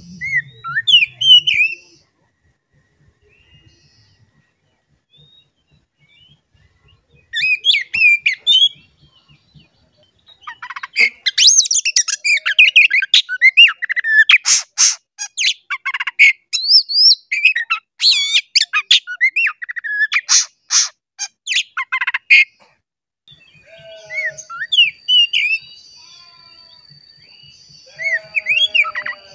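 Oriental magpie-robin (kacer) singing in bursts of quick, sliding whistled notes, with a long, loud, dense stretch of song full of sharp scratchy notes in the middle, then a few more short phrases near the end.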